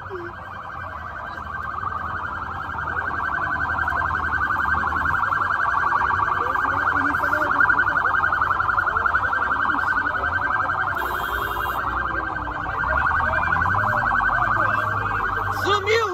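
Police car's electronic siren sounding a rapid, continuous warble, getting louder over the first few seconds, with crowd voices beneath.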